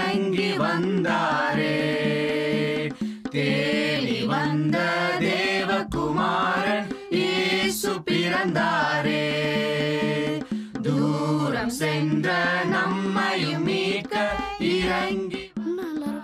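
Background music: a song with singing voices holding long notes over a steady accompaniment.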